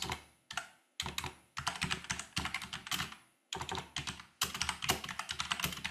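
Typing on a computer keyboard: quick runs of key clicks broken by a few brief pauses.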